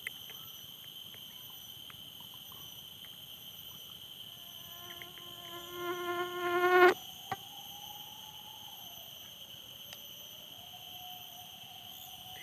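Steady chorus of field insects, a continuous high-pitched buzzing trill. Midway, a louder humming tone with overtones swells for about two seconds and then stops abruptly.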